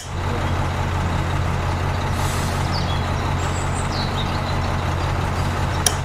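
Miniature toy concrete mixer's small electric motor running steadily with a low hum and a rattling hiss, its drum turning with wet mortar inside. A switch clicks on at the start and clicks off just before the end, when the running stops suddenly.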